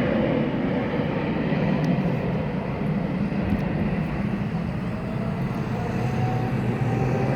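Jet airliner engines running loud and steady as the plane passes, with a faint whine rising slowly in pitch from about halfway through.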